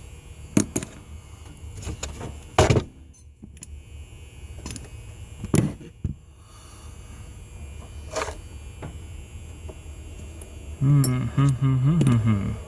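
Occasional sharp clicks and knocks of small metal lock parts being handled while a lock cylinder is taken apart for rekeying, over a low steady hum. A short murmur of voice comes near the end.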